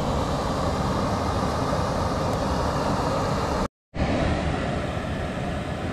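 Steady outdoor background noise, a low rumbling hiss with no distinct events. It cuts out completely for a moment just under four seconds in, then returns.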